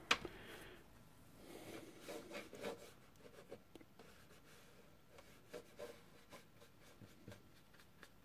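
Paintbrush rubbing over wet watercolour paper in short, faint scratchy strokes, after a single sharp click at the very start.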